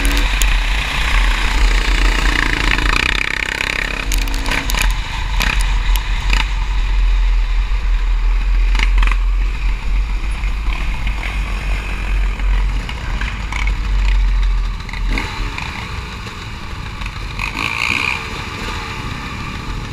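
ATV engine running at riding speed under heavy wind buffeting on the onboard camera's microphone, with dirt and stones clattering against the machine. The engine pitch rises a couple of times in the first few seconds, and everything gets quieter from about three-quarters of the way through as the quad slows to a stop.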